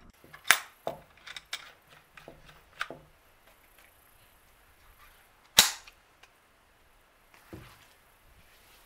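Metallic clicks and clacks from a Marlin Model 70 Papoose stainless .22 takedown rifle being assembled, with the barrel seated on the receiver and the barrel nut turned. About five and a half seconds in there is one loud, sharp metallic clack, and near the end a soft thud as the rifle is laid down in its padded case.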